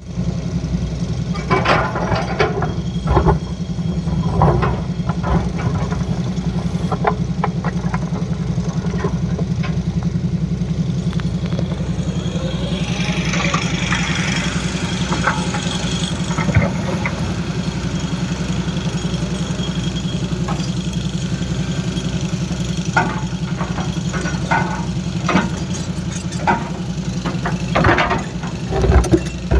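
Excavator's diesel engine running steadily, with scattered knocks and clanks. A hissing rush rises about halfway through.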